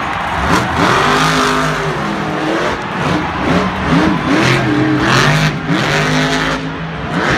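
A monster truck's engine revving hard, its pitch climbing and dropping again and again as the truck drives and turns on the dirt arena floor.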